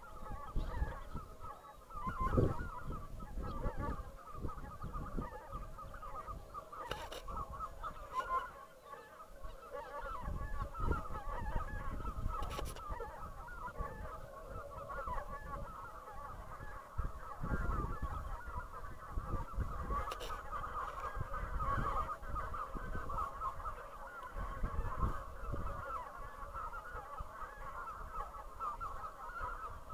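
A large flock of wild geese honking overhead, many calls overlapping into a continuous clamour.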